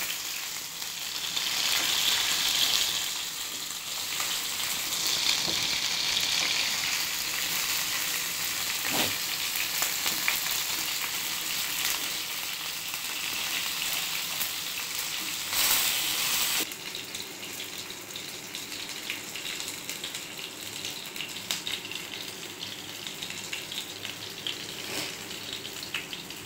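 Chicken 65 pieces deep-frying in hot oil, sizzling steadily, with a few sharp knocks of the spatula against the pan as the fried pieces are lifted out. The sizzle drops to a quieter level about two-thirds of the way through.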